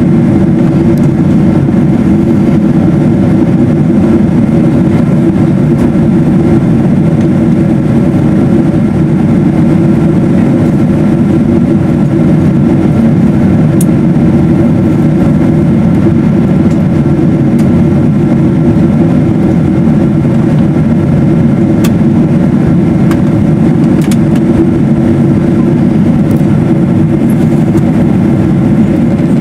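Steady cabin noise inside a Boeing 777-200ER in flight: the deep rush of airflow and the hum of its two Rolls-Royce Trent 895 engines, even and unchanging, with a few faint clicks.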